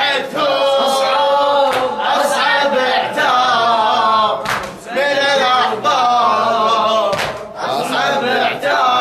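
Male voice chanting an unaccompanied Arabic latmiyya, a Shia mourning lament, in long melodic phrases with brief breaks between them.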